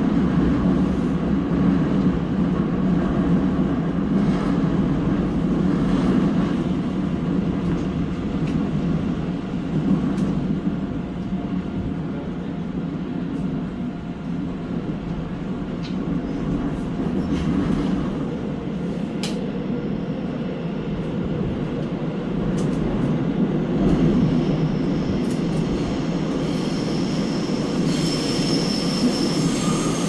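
Interior of a Seoul Line 3 subway car running through a tunnel: a steady rumble of wheels on rail and car noise. Near the end a high, thin wheel squeal comes in.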